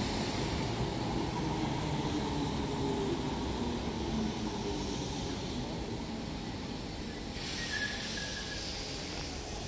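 Electric suburban multiple-unit train running on the far tracks: a steady rumble with a faint motor hum, slowly fading. A hiss comes in about seven seconds in.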